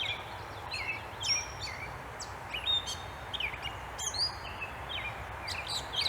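Small birds chirping rapidly, a string of short gliding calls one after another, over a steady background hum.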